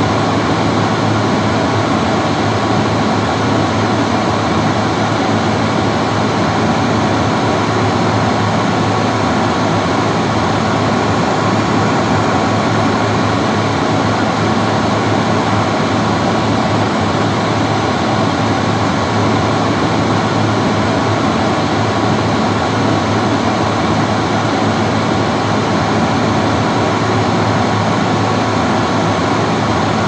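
Old-style bathroom hand dryer running continuously: a steady rush of blown air with a low motor hum underneath.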